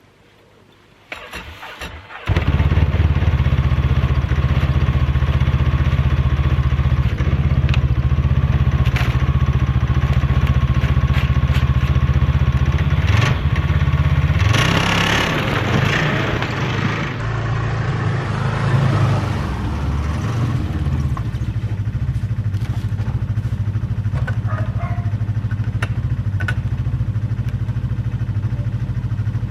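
Snowmobile engine starting about two seconds in, then running steadily, with a change in pitch around the middle before it settles to a slightly lower, even running sound.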